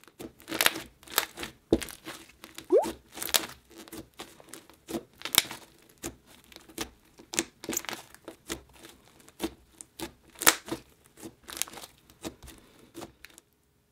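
Thick, creamy slime speckled with small coloured bits being squished, pressed and stretched by hand: a steady run of sticky crackles, pops and tearing sounds, with a short rising squeak about three seconds in. The sound cuts off just before the end.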